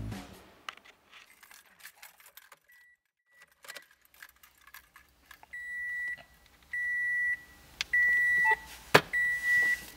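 Keys jangling and clicking at a Toyota Corolla's ignition, then the car's electronic warning chime beeping at one steady pitch, four beeps about a second apart, with a sharp click near the end.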